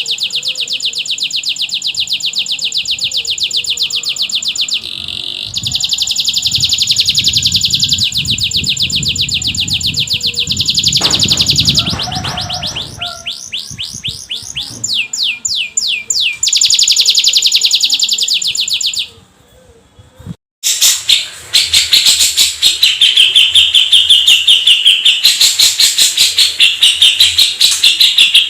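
Domestic canary singing long, very fast rolling trills, broken for a few seconds by slower sweeping notes. The song stops about two-thirds in, and after a click a second run of loud, fast, wavering birdsong starts.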